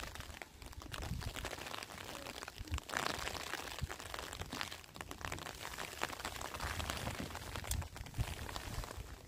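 Rustling and crinkling of a large sheet being lifted, shaken out and spread by hand, with small scuffs and crunches underfoot on gravelly ground.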